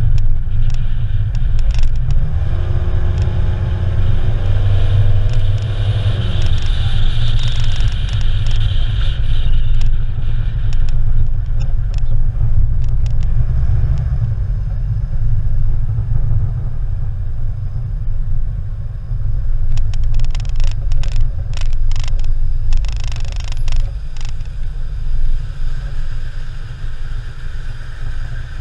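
Car driving: a steady low rumble of engine and road noise, with an engine note climbing briefly a few seconds in and a run of sharp clicks and knocks about two-thirds of the way through.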